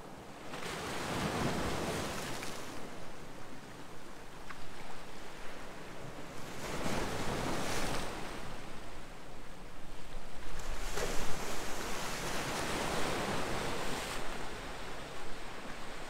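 Sea waves breaking and washing against a rocky shore: three surges of surf a few seconds apart, each building to a hiss and fading.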